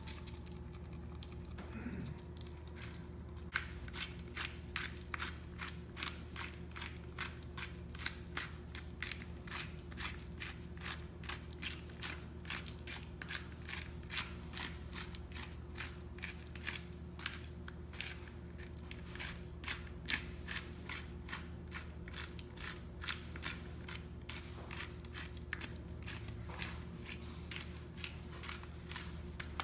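Hand-twisted pepper grinder grinding black peppercorns: an even run of short, crunching clicks, about two to three a second, starting a few seconds in.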